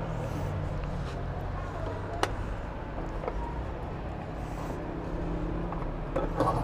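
Steady low hum, with a sharp click about two seconds in as the Suzuki Smash 115's seat is unlatched and lifted. A few small clicks near the end as the fuel tank cap is handled.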